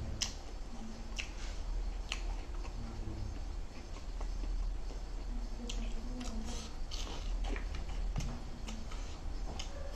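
Close-miked chewing and biting: wet mouth smacks and sharp clicks at an irregular pace over a low steady hum.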